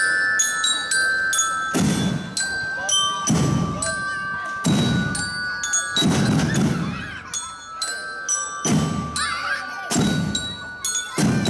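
Marching-band bell lyres (lyre glockenspiels) ringing out a melody, with a drum stroke about every second and a half.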